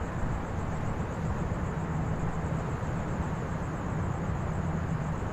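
Outdoor night ambience: crickets chirping in a constant high trill over a steady low rumble and hiss.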